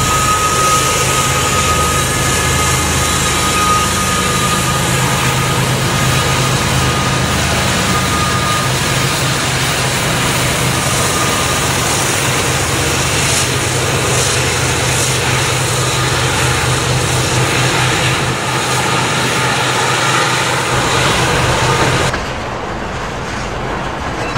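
Norfolk Southern diesel freight locomotives passing close by, their engines giving a loud, steady drone with a thin high whine over it for the first several seconds. About 22 seconds in the sound drops suddenly to a quieter rumble of a passing train of tank cars.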